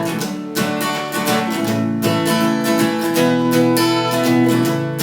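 Instrumental break in an upbeat children's song: an acoustic guitar strumming chords, with no singing.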